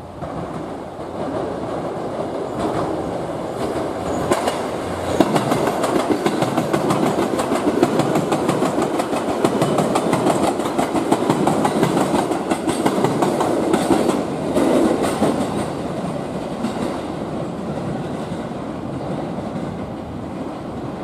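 JR East E257 series limited express electric train passing close by, its wheels clattering rapidly over rail joints and points. The sound swells about a second in, is loudest through the middle and eases off toward the end as the last car goes by.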